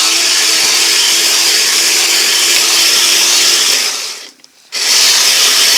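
Electric drive motor and gearing of a Kyosho Blizzard RC snowcat running in two bursts. It runs steadily for about four seconds, stops briefly, then starts again.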